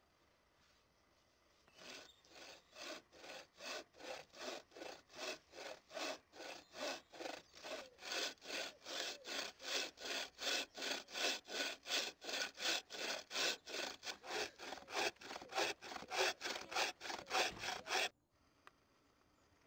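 Homemade wooden buck saw with a steel bow-saw blade cutting through a log, with quick, even rasping strokes at about three a second. The sawing starts about two seconds in and stops abruptly near the end.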